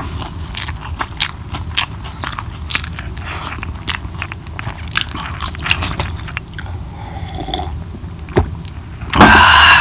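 Close-miked eating sounds of a man eating chicken curry with his fingers: chewing with many wet smacking clicks. A loud, short vocal sound comes near the end.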